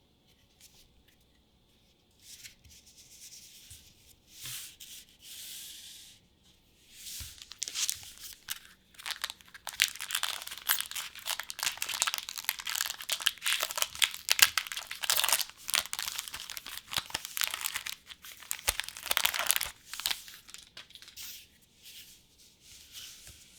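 Trading-card packaging, the foil and plastic wrapper of a booster pack or set, being torn open and crinkled by hand. It starts with light crinkling and becomes a dense run of loud crackles and tearing that fades out near the end.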